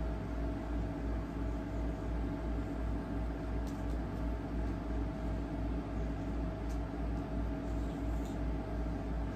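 Steady low hum with a faint whine in it, and a few soft ticks about four, seven and eight seconds in.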